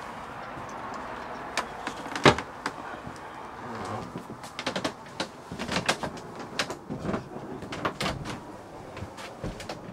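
Irregular knocks and clicks of someone moving about a yacht's wooden cabin with a handheld camera, the loudest about two seconds in, over a steady hiss in the first few seconds.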